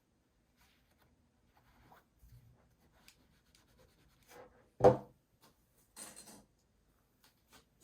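Fabric being handled and rubbed on a work surface, with scattered soft scraping noises, one loud knock about five seconds in, and a short rustle about a second later.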